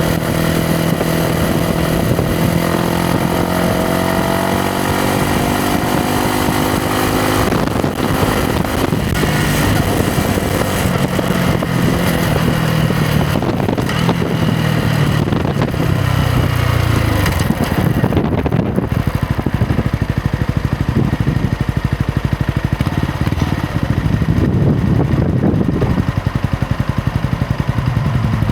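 Yamaha MT-125's single-cylinder four-stroke engine on the move: its pitch rises under acceleration in the first few seconds and holds, then drops away about two-thirds through as the bike slows, leaving a lower, uneven running sound that pulses near the end, like an idle.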